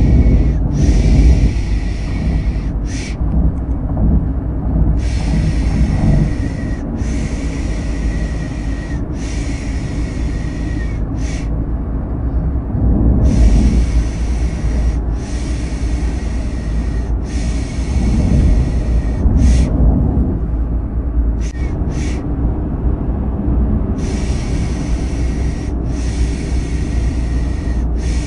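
Steady low rumble of a car ride, overlaid with a rhythmic 'shh, shh' shushing hiss used to lull a baby to sleep. Each shush lasts one to two seconds and they come in runs of three or four, with brief pauses between runs.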